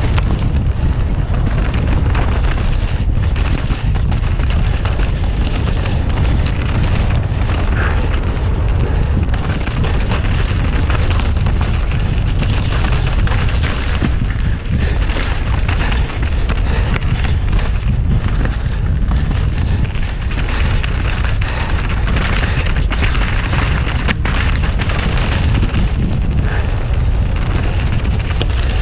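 Heavy wind rumbling steadily on the microphone of a camera riding a fast downhill mountain bike, over the hiss of tyres on rough dirt and rock and frequent knocks and rattles from the bike.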